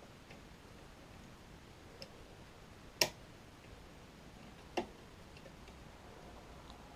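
Faint, sparse metallic clicks of a lever-lock multi-pick working the levers inside an ERA Pro Fit mortice deadlock, with two sharper clicks about three and five seconds in.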